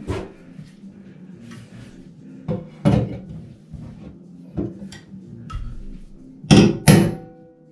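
Hammer striking a steel tool driven into a bathtub's drain flange, to bite into it and twist it out without a drain tool: about seven sharp metal knocks, the loudest two near the end, the last leaving a brief metallic ring.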